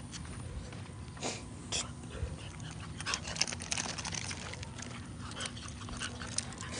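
French bulldog snuffling as it walks, with many light clicks of its claws on the concrete sidewalk, coming thick and fast from about halfway through.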